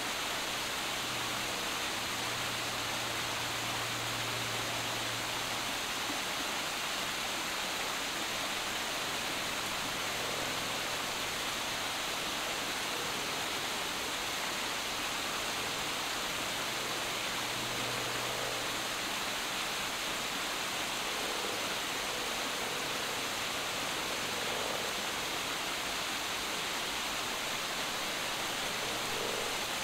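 Small waterfall spilling over boulders, an even splashing hiss of falling water that runs on without change.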